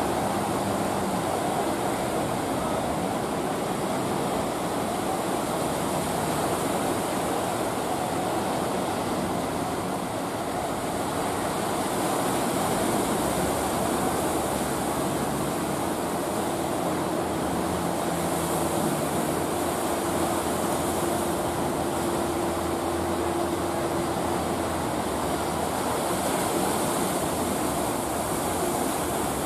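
Waves breaking in a steady rush of surf, with the low hum of the fishing boats' engines running beneath it.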